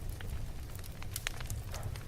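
Wood fire in a fireplace crackling: a steady low rumble of the flames with irregular sharp pops, the loudest a little after a second in.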